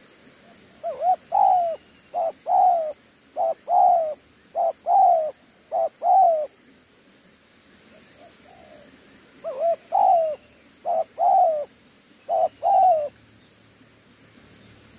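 Spotted dove cooing in two phrases of paired notes, each pair a short note followed by a longer one. The first phrase has five pairs; after a pause of about three seconds a second phrase has three more. Its keeper rates this coo as very good.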